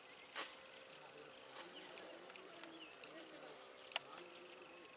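Insects, crickets or similar, chirping steadily in a high-pitched pulsing rhythm of about two to three chirps a second.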